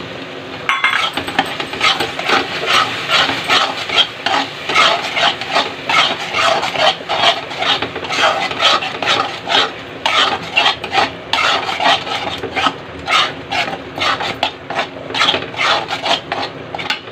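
Metal spatula stirring and scraping thick masala with peas around a kadhai, rapid repeated rasping strokes starting about a second in.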